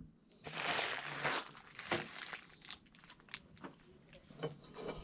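A nylon stuff sack rustling for about a second, then scattered light clicks and clinks of camping stove gear and a steel pot being handled.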